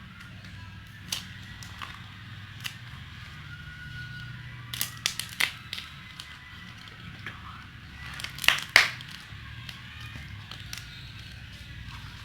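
Crackling clay being squeezed and broken by hand: scattered sharp cracks, a quick cluster about five seconds in and the loudest pair of snaps near nine seconds. A low steady hum runs underneath.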